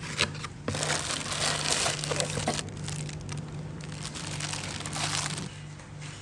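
Horn packaging being handled and opened: a few sharp clicks, then about five seconds of crinkling and rustling that stops shortly before the end.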